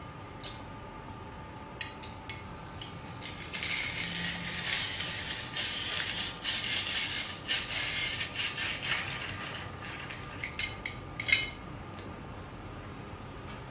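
Metal rotary drum grater being hand-cranked through a carrot: a dense, scratchy rasping and clicking of the turning drum that starts a few seconds in and runs for about six seconds. A few sharp clicks and one loud knock follow near the end.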